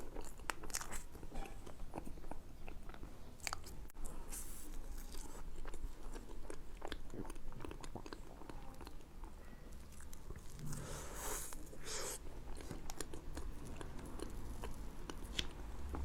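A person eating mille-crêpe cake close to the microphone: wet chewing with many small mouth clicks and smacks.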